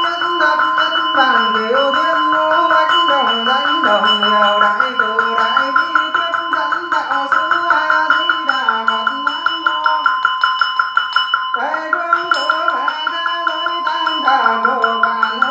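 Ritual music: a wavering melodic line over a steady ringing drone and a fast, even pulsing beat. The melody breaks off briefly about two-thirds of the way through, then resumes.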